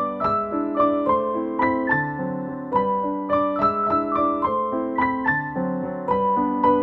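Background piano music: a melody of quick, evenly paced notes over lower chords.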